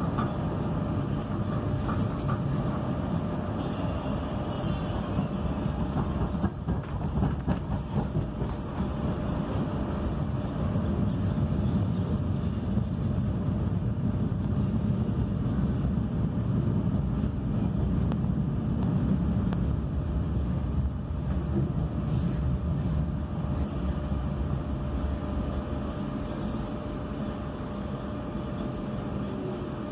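Sheffield Supertram heard from inside the car while it is moving: a steady low rumble of running on the rails, with a faint steady whine over it. A few knocks come about seven seconds in. The rumble grows louder through the middle and eases off toward the end.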